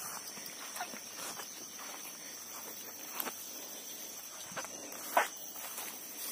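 Footsteps through grass, with a steady high insect trill behind them and one louder, brief rustle about five seconds in.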